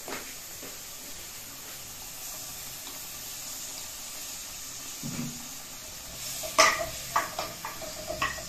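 Pot of gizzards at a rolling boil, a steady bubbling hiss; from about two-thirds of the way in, a run of sharp knocks and clatter as the wooden spoons and pans are handled, the first knock the loudest.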